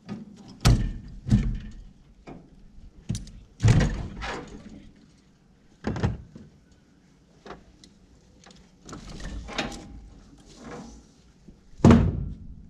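A series of sharp knocks and thuds, about five strong ones with the loudest near the end, with rustling handling noise between them.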